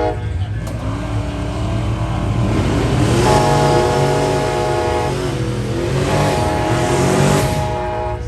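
Drag-racing cars' engines revving and accelerating, rising in pitch in two surges about three and six seconds in, over a steady low rumble.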